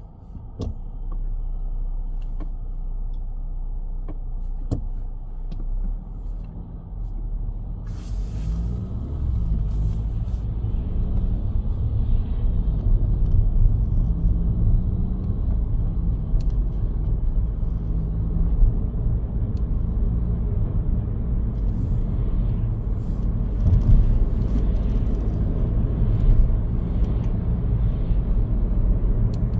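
Car driving on the road: steady engine and tyre noise that grows louder about eight seconds in as the car speeds up, with the engine pitch rising and falling for several seconds after that.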